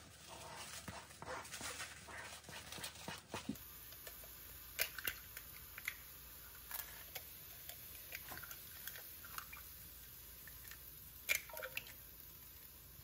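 Kitchen handling sounds while food is prepared: scattered clicks and knocks of utensils and dishes. They are busier in the first few seconds, then come as sparse sharp clicks.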